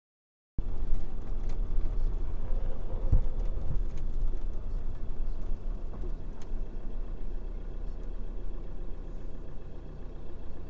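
Camper van's engine running, heard as a steady low rumble with a few faint clicks, easing slightly toward the end.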